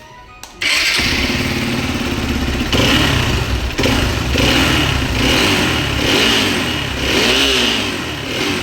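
Hero XPulse 200's single-cylinder engine starting about half a second in, then running with repeated short revs that rise and fall about once a second. This is its test run after a new balancer gear was fitted with the timing dots aligned.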